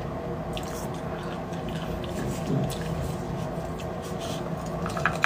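Wet mouth sounds of someone eating beef bone marrow, biting and sucking at a braised bone chunk: small sticky clicks and squishes over a steady low hum.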